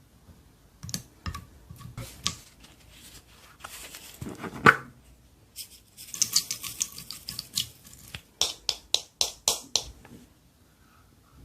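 Slime being squished and stretched by hand, with sticky clicks and pops. A dense crackling stretch comes in the middle, then a run of about six sharp snaps near the end.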